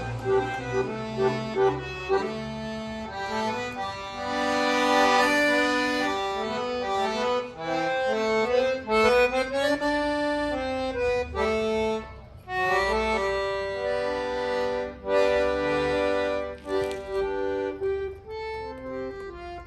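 Accordion (sanfona) playing a tune: a moving melody over sustained chords and bass notes, with a short break in the phrase about two-thirds of the way through.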